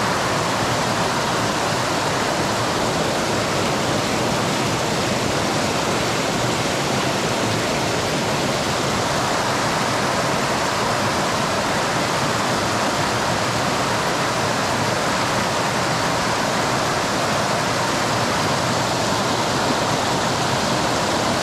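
Creek water rushing fast over rocks, a steady, even rush of white water with no breaks.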